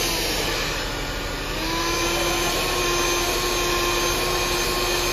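Handheld hair dryer blowing steadily, a motor whine over rushing air, briefly dipping about a second in and then coming back up.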